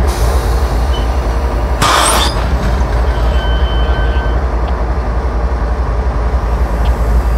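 CSX GE diesel locomotives passing at close range, their engines running with a deep, steady rumble. About two seconds in comes a short hiss of air.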